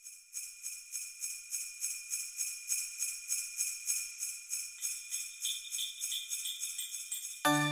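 Sleigh bells shaken in a steady rhythm, opening a Christmas music track. Near the end, the rest of the music comes in with bass and melody.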